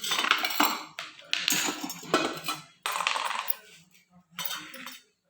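Stainless steel lunch-box containers being handled, clinking and rattling against each other in four short bouts.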